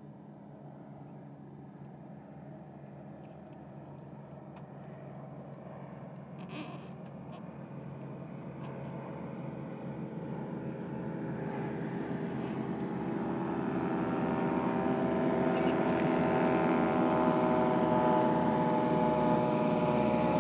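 Grumman Goose's twin radial engines running on approach to a water landing, growing steadily louder as the aircraft comes nearer.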